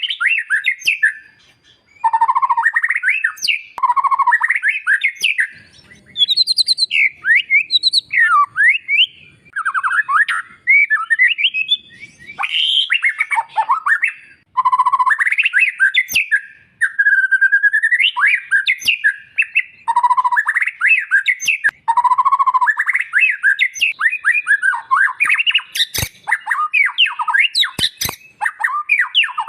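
White-rumped shama singing loudly: a long, varied run of whistled, slurred phrases and quick trills with harsh notes, broken by short pauses, with a few sharp clicks near the end.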